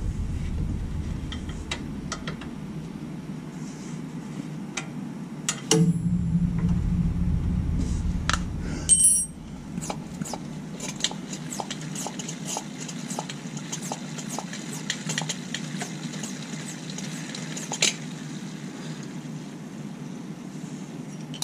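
Small clicks and clinks from hands working a brake-bleeder catch bottle, tubing and the bleeder screw at a brake caliper, over a steady low hum. A louder stretch about six seconds in ends in one sharp, ringing clink about nine seconds in, and light irregular ticks follow.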